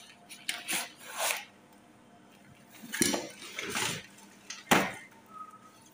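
A school bag being unpacked: books and other things taken out of it make a string of separate rustles, clatters and soft knocks.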